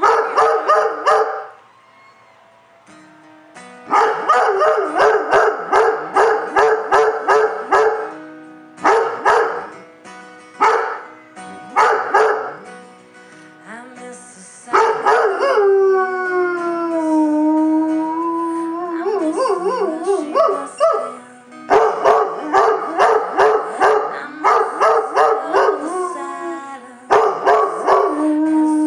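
A live recording of a song playing from a phone: quick repeated chords in bursts with short pauses, and gliding held notes in the middle. About a second before the end, a Giant Schnoodle begins howling along in one long, steady note.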